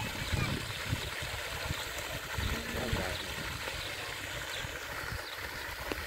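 Park water fountain spraying into a small pond: a steady wash of falling water splashing on the surface.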